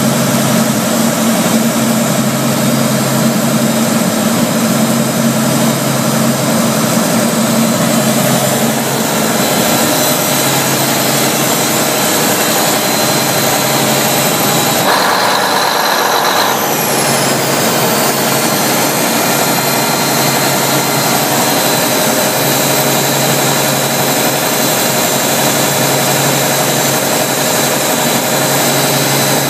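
1994 Olathe 876TG tub grinder's engine running steadily, with a short patch of extra noise about halfway through and a falling high whine just after it.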